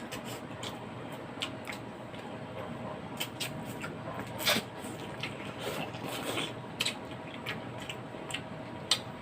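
Eating sounds at a meal of bulalo beef soup: chewing with scattered short clicks of utensils against bowls or plates, the loudest clicks about four and a half and nine seconds in, over a faint steady hum.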